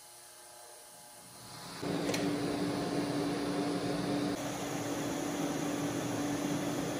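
TIG welding arc, starting about two seconds in and then running as a steady buzzing hiss with a constant hum, as a tacked exhaust joint is finish-welded.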